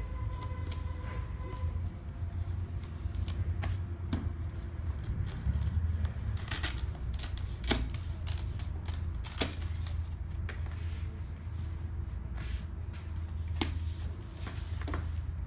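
Paperboard box being handled on a tabletop: scattered taps, rubs and short scrapes of cardboard against hands and table as it is pressed and slid, over a steady low hum.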